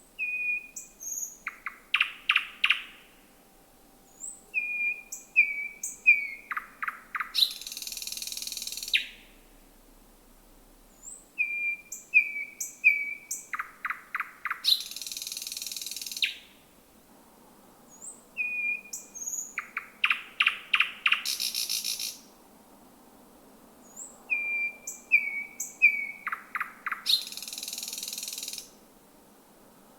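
Thrush nightingale singing at night: about five song phrases, each a few short piping notes, then rapid clicking notes, ending in a long harsh rattle of a second or more.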